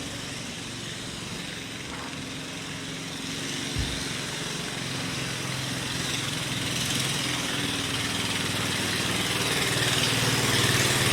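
An engine running steadily and growing louder toward the end, with a brief low thump about four seconds in.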